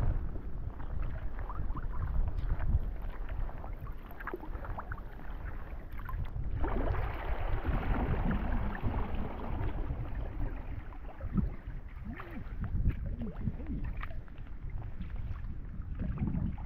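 Kayak being paddled: paddle strokes and water splashing and lapping at the hull, over a low wind rumble on the microphone. About seven seconds in, a louder hissing splash lasts a few seconds.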